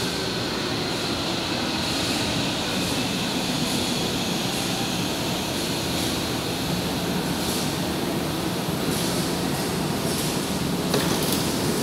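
São Paulo Metro Line 3 electric train of the K fleet pulling in along the platform and slowing down: a steady rumble of wheels and motors, with a faint high whine that fades after the first few seconds.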